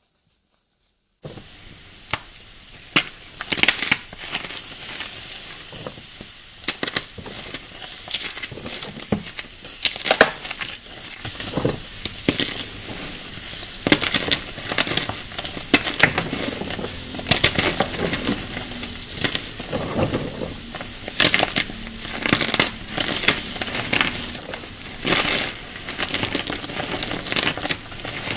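Hands squeezing and crushing crumbly coloured powder chunks into a wet, foamy, gritty mix. The sound is a steady fizzing sizzle under many small crackles and crunches, starting about a second in.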